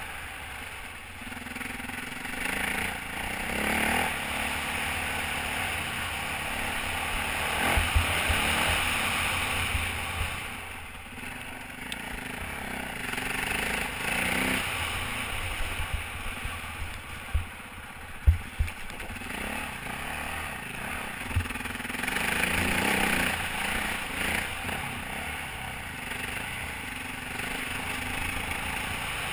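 Dirt bike engine revving up and easing off again and again while riding, mixed with rushing wind noise on the helmet-mounted microphone. A few sharp low thumps come through about 8 seconds in and again around 17 to 21 seconds in.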